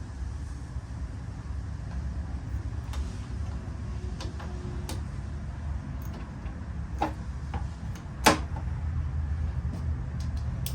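Scattered sharp metal clicks and clinks of hand tools working a battery cable terminal loose, with the sharpest clink about eight seconds in, over a steady low rumble.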